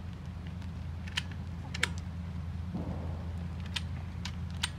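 Sharp metallic clicks from a shotgun being handled at its action, about five scattered through a few seconds, over a steady low hum.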